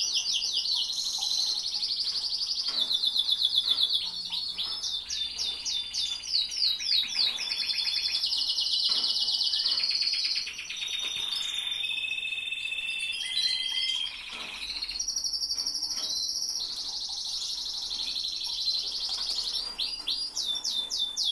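Canaries singing: long runs of rapid, high-pitched trills, shifting from one repeated phrase to the next every second or two.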